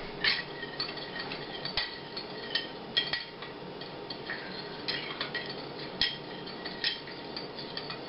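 Metal spoon stirring sugar and warm water in a small glass bowl, clinking against the glass about one to two times a second at uneven intervals, as the sugar is dissolved into syrup.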